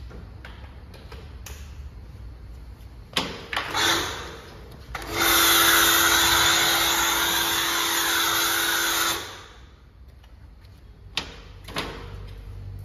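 A few short spurts of spray, then a small motorised sprayer running for about four seconds with a steady hum and a hiss of spray as it mists wheel cleaner onto an alloy wheel and tyre, stopping abruptly. Two more short spurts follow near the end.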